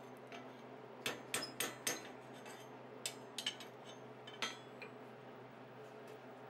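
Forging hammer tapping a steel bar's bent loop over the horn of a small stake anvil, the tip cooled in water: light metallic clinks, four in quick succession about a second in, then two around three seconds and one more near four and a half seconds.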